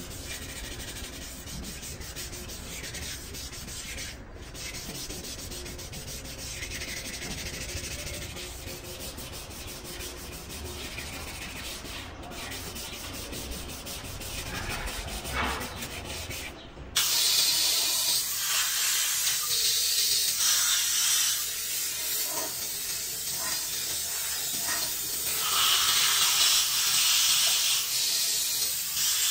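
Hand rubbing and scrubbing on the top deck of a bare diesel engine cylinder block, a rough, scraping noise. About 17 seconds in it cuts abruptly to the loud steady hiss of a compressed-air canister spray gun blasting cleaning mist over the block, surging louder now and then.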